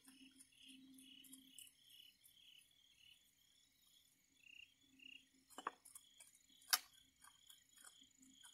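Crickets chirping in a steady, pulsing night chorus. A little past the middle come two sharp clicks about a second apart, with faint ticks scattered throughout.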